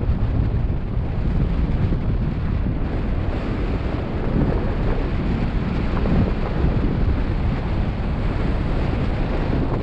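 Wind noise on the microphone of a paraglider in flight: a steady, low rumbling rush of airflow.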